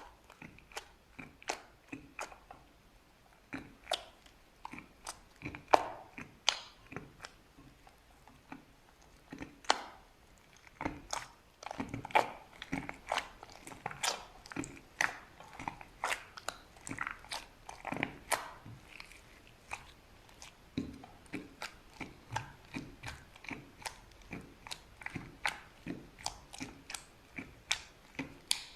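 Slime being squeezed and worked by hand, making irregular sticky pops and clicks, several a second, busiest in the middle.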